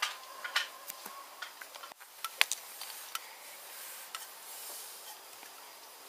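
Folded cotton towels being handled and pressed flat on a padded table: soft cloth rubbing with a few sharp clicks and taps, the loudest a pair of taps about two and a half seconds in.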